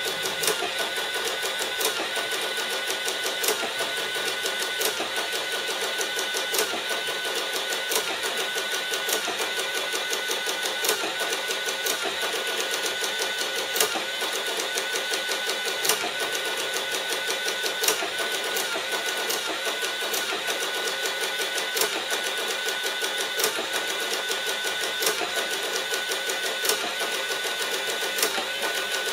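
Sharp XE-A107 cash register's built-in receipt printer running continuously, feeding out a long printed strip line by line with a steady mechanical whir and regular ticking.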